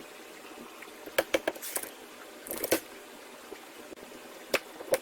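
Windscreen wiper arm being rocked up and down and worked off its splined pivot shaft: short sharp clicks and knocks, a quick cluster about a second in, another a little before the middle, and single ones near the end.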